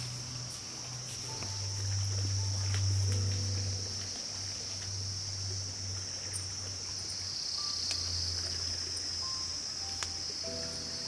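Steady high-pitched buzzing of insects in the undergrowth, with soft background music underneath: low bass notes and a few sparse held tones.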